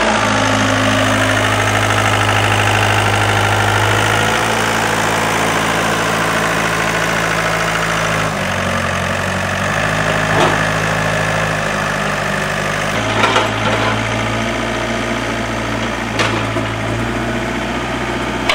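Hyundai Robex mini excavator's diesel engine running, its pitch stepping up and down every few seconds as the hydraulics take load while it swings and digs. A few sharp knocks come through.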